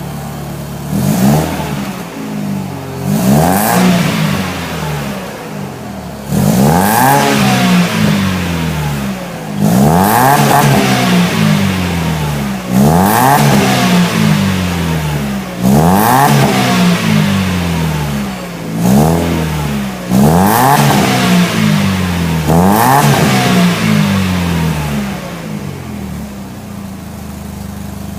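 Mercedes-Benz SLK R170 engine through a Remus aftermarket exhaust, idling and revved about eight times in a row, each rev climbing quickly and dropping back to idle. It settles back to a steady idle near the end.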